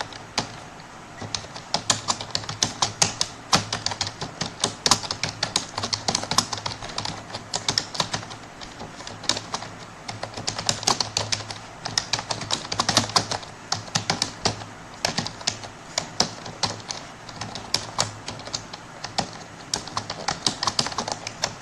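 Computer keyboard being typed on fast and continuously during a timed typing test: a rapid, uneven patter of key clicks, several a second, with only brief pauses.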